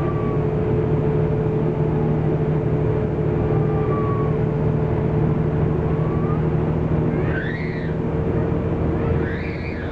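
Renault PR112 city bus driving, heard from inside the front of the cabin: the steady drone of its diesel engine and road noise. Near the end come two short high squeals, each rising then falling, about two seconds apart.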